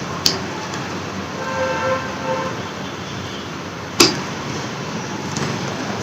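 Plastic intercom mount being handled and fitted to a motorcycle helmet: a sharp click just after the start and a louder one about four seconds in, over steady background noise. A faint pitched tone sounds for about a second near the middle.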